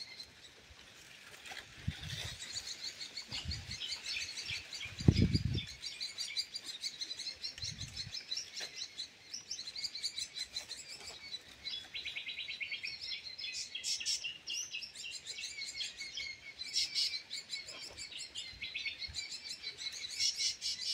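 Small birds chirping and twittering steadily in quick repeated notes, with low gusts of wind buffeting the microphone a few times in the first eight seconds, the strongest about five seconds in.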